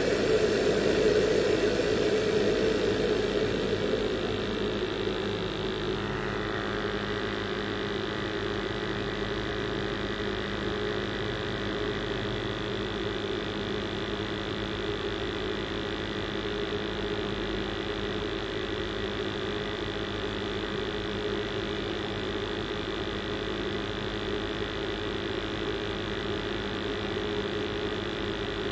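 Commercial gas boiler's burner and fan running with a steady roar and hum, louder for the first few seconds and then settling to a lower steady level as the boiler is turned down from high fire to low fire.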